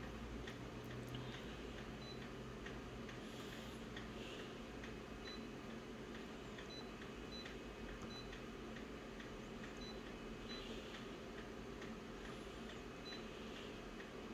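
Office multifunction copier's touchscreen giving a few short, high key beeps a few seconds apart as its settings buttons are pressed. Underneath is a low steady hum with faint regular ticking about twice a second.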